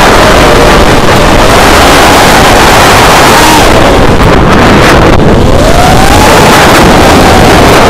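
FPV racing quadcopter's motors whining, their pitch rising and falling as the throttle changes, heard from the onboard camera with heavy wind rush over its microphone. Very loud throughout.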